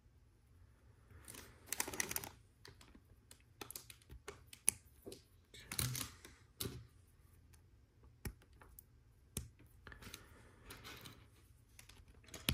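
Small plastic LEGO Technic parts clicking and clattering as they are handled and pushed together: a run of irregular light clicks, with a few sharper ones.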